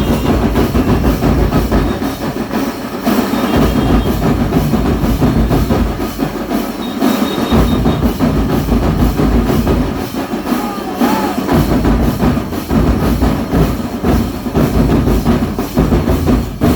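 Loud music with a steady percussion beat and a deep bass part that drops in and out every couple of seconds.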